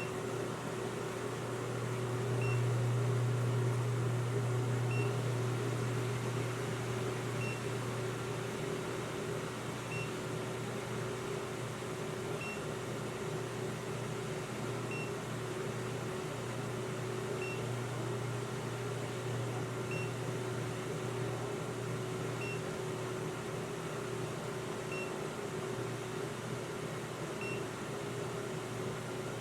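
A steady electrical hum that swells a little a few seconds in and then settles. Over it comes a faint, short, high beep every two and a half seconds.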